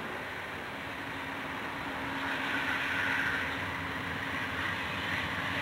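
CSX diesel freight locomotive approaching, its engine running with a steady hum over the rumble of the train, growing louder over the first three seconds.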